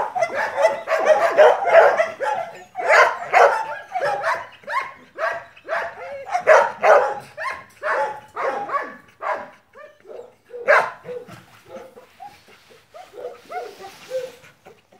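A dog barking rapidly and over and over, the barks thinning out to a few softer, shorter yips in the last few seconds.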